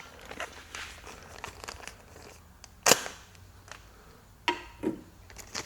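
Package being cut and opened with an X-Acto knife: faint rustling and scraping, one sharp click about three seconds in, and a couple of softer knocks near the end.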